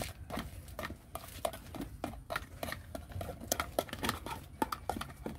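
Hard plastic toys clicking and clattering irregularly as a small child picks through and handles them.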